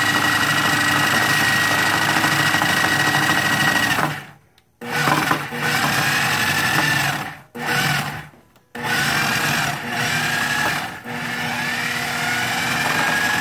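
Countertop food processor motor running with a steady whine, chopping frozen strawberries and yogurt. About four seconds in it stops briefly, then runs in a few short starts and stops before running steadily again.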